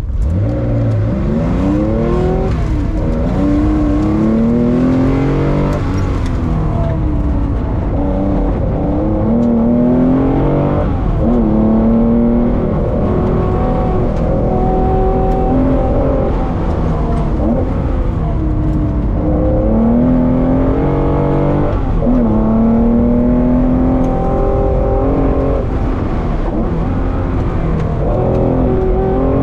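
Vintage car's engine heard from inside the cabin, pulling hard with its pitch rising under throttle and falling back again many times over as the car accelerates, lifts and accelerates again.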